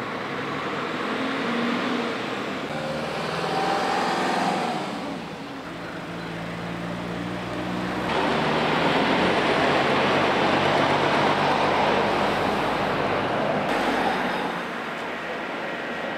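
Motor vehicle engines and road traffic noise, louder for about six seconds in the second half.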